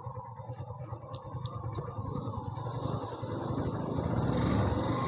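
Yamaha FZ V2 motorcycle's single-cylinder engine running while riding, steady at first and getting louder about four seconds in.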